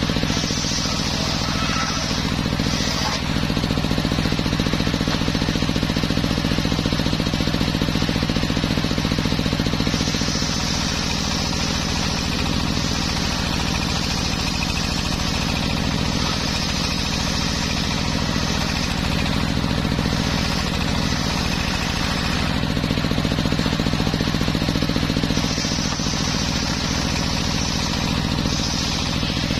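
Homemade circular sawmill running with a steady drone, its blade sawing through teak. A high hiss from the cut comes and goes several times over the stretch.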